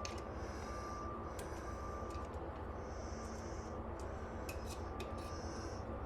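Small metal clicks and short scrapes as the cotter pin is worked out of the motorcycle's rear axle nut, over a steady low hum.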